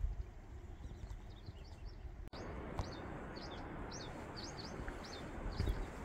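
A small bird chirping: a quick run of short high notes, several a second, starting about a second in, over a steady outdoor hiss. The sound drops out for an instant a little over two seconds in.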